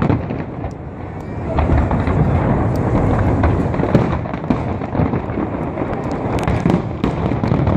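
Fireworks display: a rolling rumble of shell bursts with many sharp bangs and crackles, a cluster of crackling reports about six and a half seconds in.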